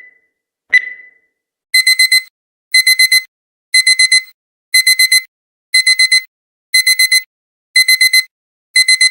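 Digital countdown timer beeping: one last single high beep as the count runs out, then about two seconds in the alarm goes off. The alarm plays bursts of four quick high beeps, repeating once a second, to signal that time is up.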